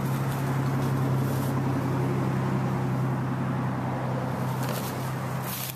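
An engine running steadily: a constant low hum with overtones that starts and cuts off abruptly.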